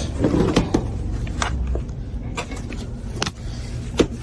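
A heavy, cracked wooden barrel being handled: about six sharp knocks and clicks spread irregularly over four seconds, the loudest near the end, over a low steady rumble.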